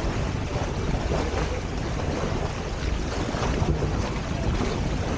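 Wind buffeting the microphone over the rush of water along a sailing catamaran's hulls: a steady noise, heaviest in the low end.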